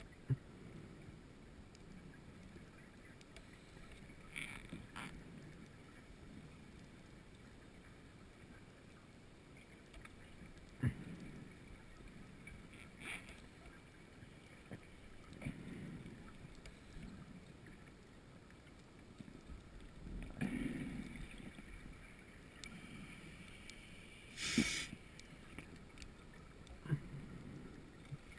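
Underwater sound of a scuba diver's breathing: exhaled bubbles rumbling and gurgling every few seconds, with hiss from the regulator and a few sharp clicks. The loudest breath comes about three-quarters of the way through.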